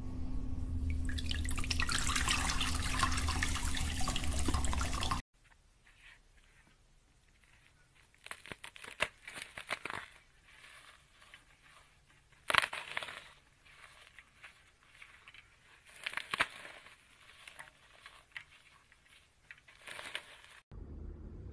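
Hands squeezing and kneading glitter slime: wet, sticky squelches and crackles. The first five seconds are louder and denser, over a low hum, then the sound cuts to quieter squeezing with a few louder squelches.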